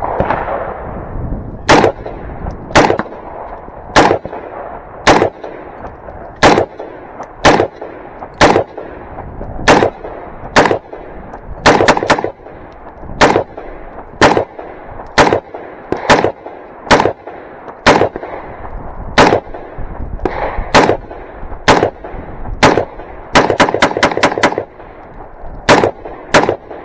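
AR-15 rifle fired semi-automatically in a long string of single shots, roughly one a second, each followed by a short echo. About three seconds before the end comes a quick run of about six shots.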